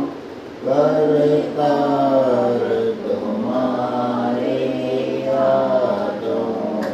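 Voices singing a slow devotional guru hymn in Hindi in chant style, with long held notes that bend gently in pitch and a short breath pause about half a second in.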